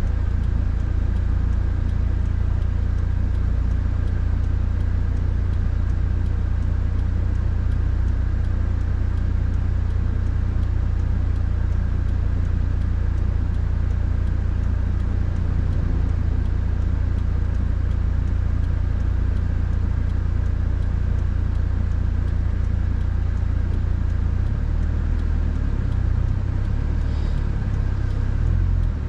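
Steady low rumble of road and engine noise inside a Subaru WRX's cabin while driving. The rumble turns uneven near the end.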